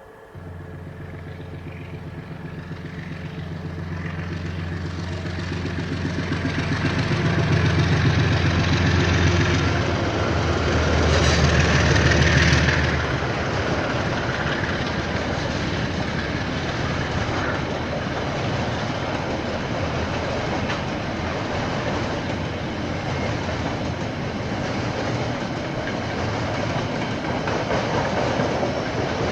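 Diesel freight locomotive passing, its engine drone growing louder for the first dozen seconds and then dropping away about 13 seconds in. A steady rumble of wagons rolling over the rail joints follows, with a clickety-clack.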